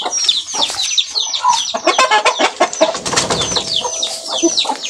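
Chickens clucking and peeping: a dense run of short, high, falling peeps, several a second, with scattered knocks and rustles.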